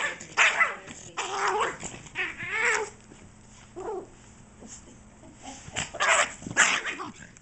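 Small dog squealing and growling in excited bursts while being played with roughly, a noise it makes in play, not in distress. The calls come in quick runs, die down in the middle, then return loudly near the end.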